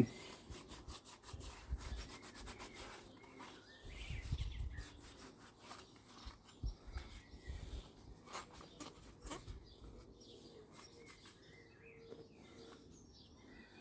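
A petrol-dampened cloth rubbing and wiping water residue out of a petrol strimmer's air filter compartment: irregular soft scrubbing strokes with small clicks and knocks, a little louder around four seconds in.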